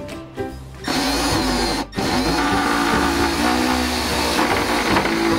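Power drill driving a Tiger Balm–coated wood screw into particleboard. The motor starts about a second in, stops briefly near two seconds, then runs on steadily, its pitch dipping and recovering under load. The balm lubricates the screw so it turns in without binding.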